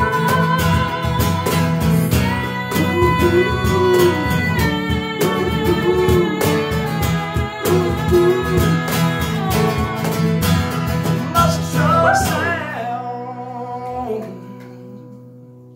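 Strummed acoustic guitar and a cajon beat under a woman singing long held notes. The band stops about twelve seconds in after a final vocal run, and the last guitar chord rings and fades away at the end of the song.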